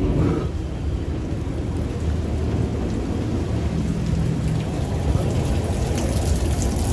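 Sydney P-class tram 1497 running along the track, heard from on board: a steady rumble of wheels on the rails, with a few short clicks near the end.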